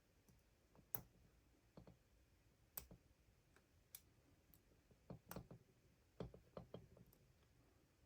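Faint, scattered clicks of a lock pick and turning tool working in a padlock's keyway, with a quicker run of clicks about five to seven seconds in.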